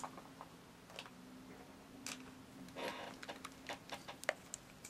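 Faint, scattered small clicks and light taps, a handful over a few seconds, from nail-art painting tools working on plastic nail tips, over a faint steady low hum.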